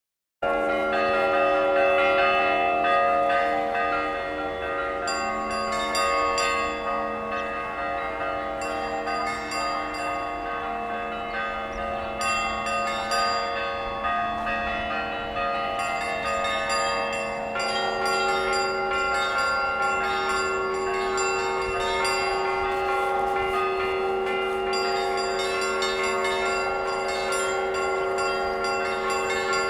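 Church clock bell ringing, struck again and again, each stroke ringing on under the next so the tones overlap. It starts suddenly about half a second in.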